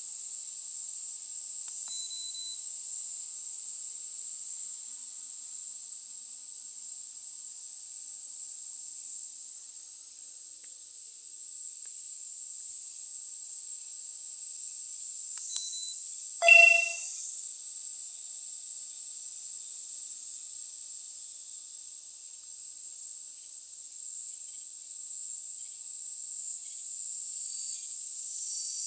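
Insects chirring in a steady, high-pitched, continuous drone. A short, louder pitched sound breaks in about halfway through, and a fainter brief tone comes about two seconds in.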